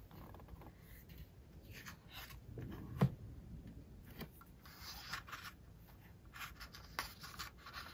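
Stiff pages of a hardcover photobook album being opened and leafed through: paper rustling and rubbing with small clicks, and a sharp tap about three seconds in.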